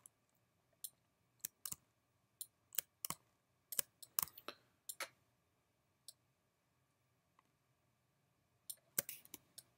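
Computer mouse clicking: scattered single and double clicks, then a few seconds with none, then a quick run of clicks near the end.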